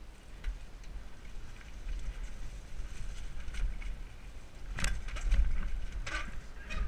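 Mountain bike ridden fast down a rough dirt trail, heard from a helmet camera: a steady low rumble of wind and tyres, with the bike rattling and knocking over the ground. The sharpest knocks come about five seconds in and again a second later.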